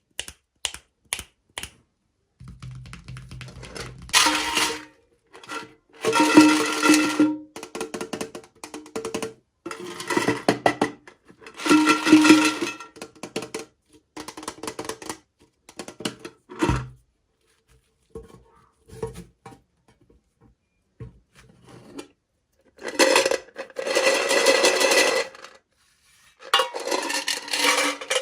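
Hands unpacking small plastic toys: sharp clicks and taps, with bursts of plastic crinkling and clinking lasting a second or two each, the longest about two thirds of the way in.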